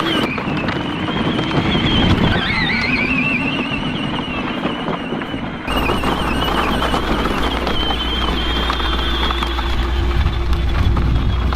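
Electric drive motors of a 24-volt kids' ride-on UTV running with a high whine that rises in pitch about two seconds in, then holds steady. The sound changes abruptly about halfway through.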